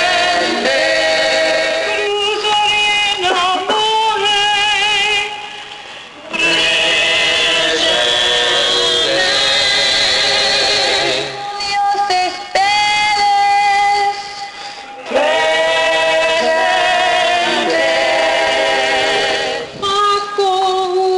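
Several voices singing long, slow held notes with vibrato, in phrases broken by a few short pauses.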